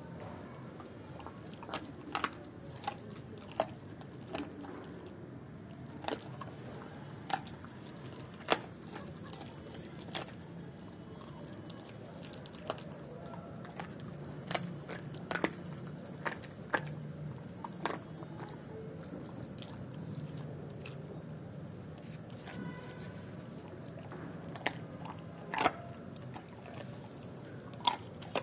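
German Shepherd chewing raw chicken feet, with irregular sharp crunches as the feet break between its teeth.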